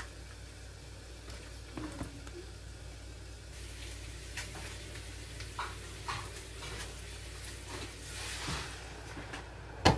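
Food sizzling in a frying pan on an electric stove, with scattered knocks of a utensil on the pan. The sizzle grows louder about a third of the way in and swells again as more food goes into the pan. A sharp knock comes just before the end.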